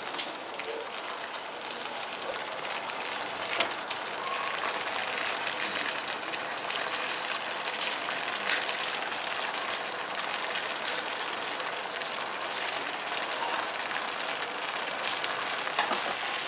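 Food sizzling steadily in a hot pan on a medium flame as boiled noodles are added to the sautéed chicken-and-vegetable masala, with a few light utensil clicks near the start.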